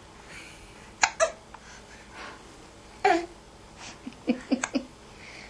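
A baby hiccuping: two quick hiccups about a second in and another around three seconds, then a quick run of short, small vocal sounds near the end.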